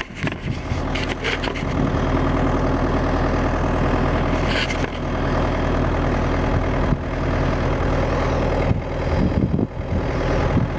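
Yanmar 50 mini excavator's diesel engine running steadily, getting louder about two seconds in.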